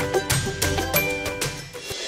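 Upbeat intro theme music: a quick run of short melodic notes over a bass line and light percussion.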